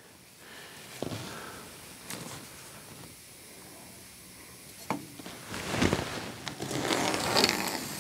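Handling noise of a ruler and marker on the end of a log as a cut line is drawn: a few light taps about one, two and five seconds in, then scraping and rustling with clicks in the last few seconds.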